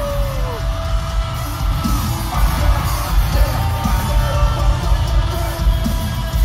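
Loud live hip-hop music through a concert sound system with a heavy bass beat, and a crowd yelling and whooping over it.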